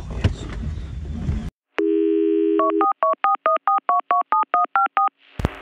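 Low in-car background noise that cuts off abruptly after about a second and a half, then a telephone dial tone followed by about a dozen touch-tone keypad beeps in quick succession: an edited-in sound effect of a number being dialled.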